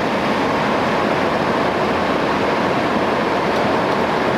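Tohoku Shinkansen train running at high speed, heard from inside the carriage: a loud, steady rushing roar of wheels, track and air that does not change.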